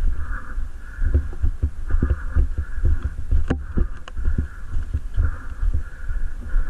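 Low, uneven thumping and rumble of a jostled camera microphone as its wearer moves, with one sharp click about three and a half seconds in.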